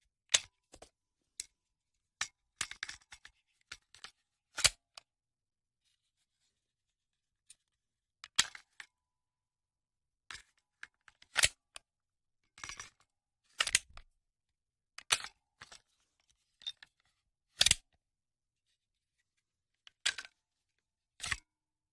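Handgun magazine being loaded: a series of short, sharp metallic clicks and snaps, irregularly spaced about one a second, some coming in quick pairs.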